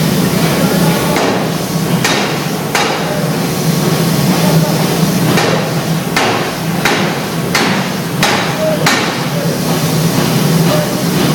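Steam forging hammer striking a red-hot steel billet on its anvil, about nine heavy blows: three in quick succession, then after a pause a run of six about two-thirds of a second apart. A steady low hum runs underneath.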